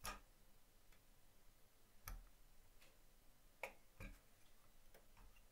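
A handful of faint, sharp clicks from a fine hobby tool working on a thin photo-etched metal fret as small brake-disc parts are freed from it. About five isolated clicks: one right at the start, one about two seconds in, a pair close together around three and a half to four seconds, and a fainter one near the end.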